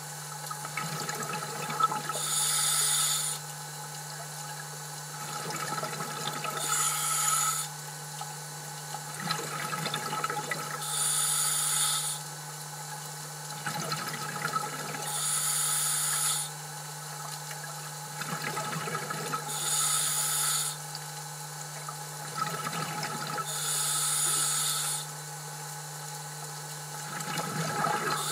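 Scuba diver breathing through a regulator: a hiss on each inhalation through the demand valve alternates with the gurgle of exhaled bubbles, about one breath every four seconds. A steady low hum runs underneath.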